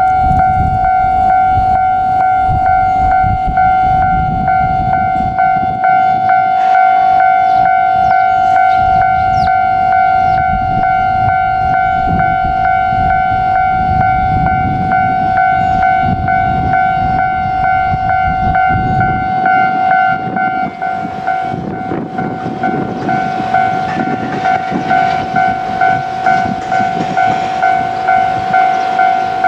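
Japanese railway level-crossing alarm ringing: a steady electronic two-tone chime striking over and over. A low rumble underneath drops away about two-thirds of the way through, and after that the regular strokes of the alarm stand out more clearly over a light hiss.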